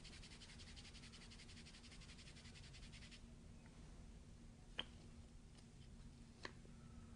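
Faint, rapid scratchy rubbing from hands working kinesiology tape on skin, stopping about three seconds in. Two light clicks follow, over a faint steady hum.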